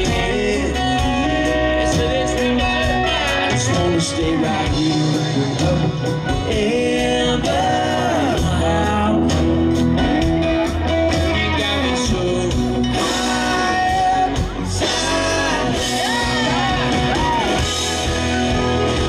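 Live country-rock band playing: a lead voice singing over acoustic and electric guitars and drums.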